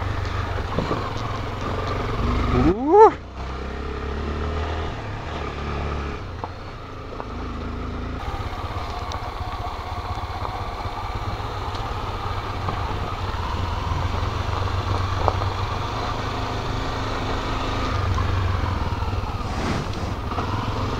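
Honda XRE300's single-cylinder engine running under way, with a brief sharp rise in revs about three seconds in, the loudest moment, before it drops back to a steady run.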